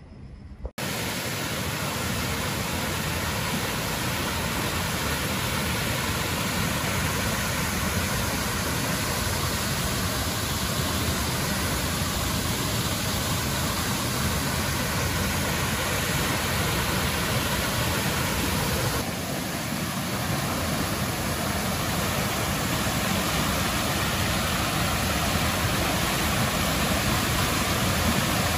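Fast-flowing river water rushing steadily, an even, unbroken noise that starts abruptly just under a second in.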